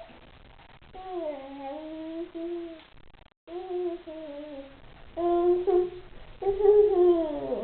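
A young child humming a wordless tune in four drawn-out phrases, each gliding up and down in pitch, with short breaks between them.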